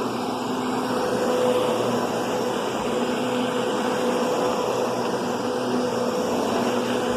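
Kenmore Progressive canister vacuum cleaner running steadily, a constant motor hum over the rush of air.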